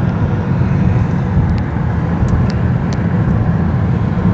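Steady low rumble of a car driving at highway speed, heard from inside the cabin: tyre and engine noise, with a few faint ticks in the middle.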